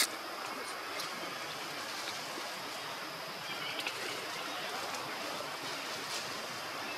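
Steady outdoor background hiss, like wind or running water, with a few faint ticks; a sharp click right at the start.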